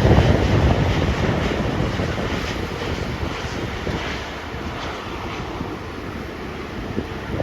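Jet airliner going past overhead, a loud rushing noise that is strongest at the start and slowly fades away, with wind buffeting the microphone.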